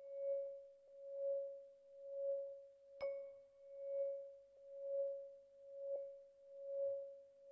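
Electronic soundtrack: a steady pure tone swelling and fading about once a second, like a slow pulse, with one bright ping about three seconds in that rings briefly.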